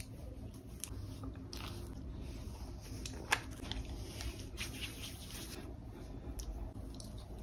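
Quiet handling sounds: soft rustling against a towel with scattered small clicks and one sharper click about three seconds in.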